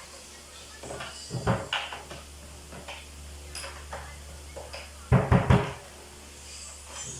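Low thumps and knocks from a 22-inch bass drum as its resonant head is tightened with a drum key during tuning: one thump about a second and a half in, then a quick run of about four louder thumps around five seconds in, with small clicks between.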